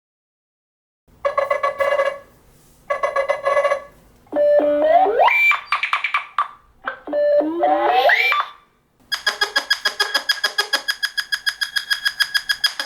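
Nothing Phone (2) ringtones playing one after another: a short electronic chime phrase played twice, then a synth phrase with rising glides played twice, then, about nine seconds in, a fast pulsing electronic tone.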